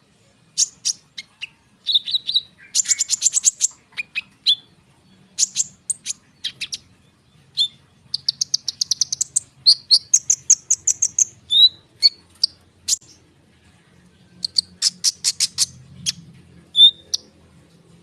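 A konin songbird singing a dense rolling song: quick runs of rapid, high repeated notes and trills, broken by short sharp chips and brief pauses.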